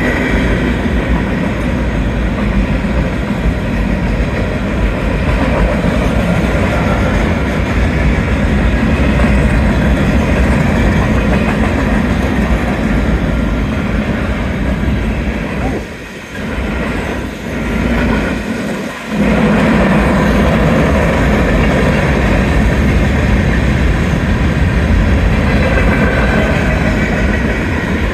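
Freight cars of a Union Pacific manifest train rolling past at speed, a steady loud rumble and clatter of wheels on rail. The noise dips briefly twice about two-thirds of the way through.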